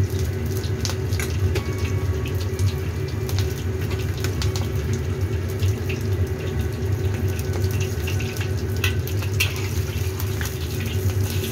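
Battered tempeh sizzling and crackling in hot oil in a wok: a steady hiss dotted with fine pops, over a steady low hum.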